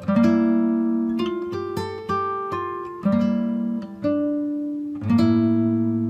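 Background music: acoustic guitar playing chords, struck about once a second, each ringing out and fading before the next.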